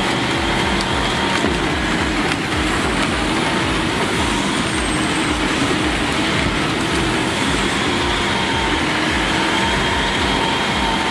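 Heavy machinery running steadily: a loud, even engine drone with a fast low pulsing and a faint steady whine over it.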